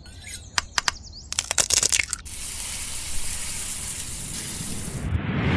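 Cartoon intro sound effects: high chirps at the start, a few sharp clicks and a short clattering rattle, then a steady hiss for about three seconds, with a low rumble building near the end.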